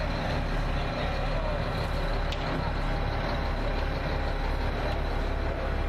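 Concrete mixer truck's engine running steadily, a low, even drone.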